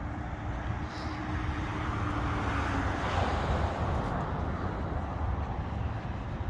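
Road traffic noise outdoors, swelling as a vehicle passes about halfway through.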